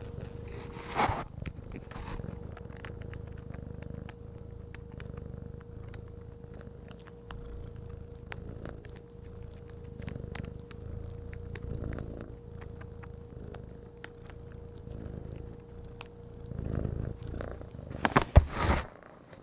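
Kitten purring close to the microphone: a steady, pulsing low rumble, with scattered small clicks over it. Near the end, a few loud scuffling knocks as the kitten lunges and rolls in play.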